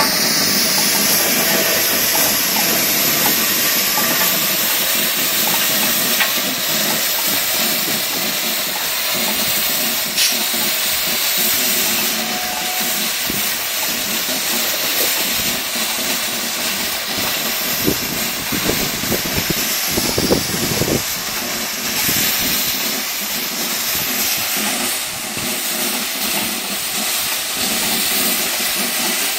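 GWR Castle class 4-6-0 steam locomotive 5029 Nunney Castle moving slowly, with a steady hiss of steam and a few sharp clanks.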